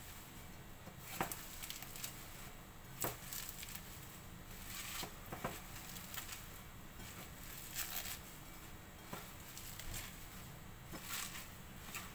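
Raw curly kale leaves crinkling and crunching as hands squeeze and massage them in a bowl, in irregular rustles and crackles.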